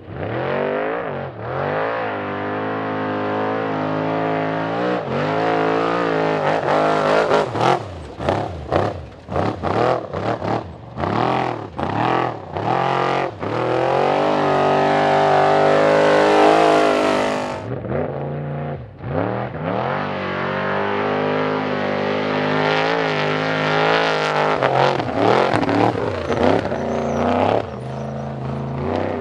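Trophy Trucks and Class 1 desert racers revving hard through dirt turns, engine pitch rising and falling as the throttle is lifted and reapplied, with a run of quick throttle stabs in the middle. One vehicle follows another.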